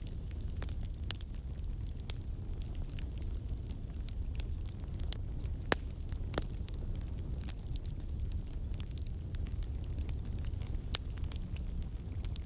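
Bonfire burning, a steady low rumble of the flames with irregular sharp crackles and pops of burning wood.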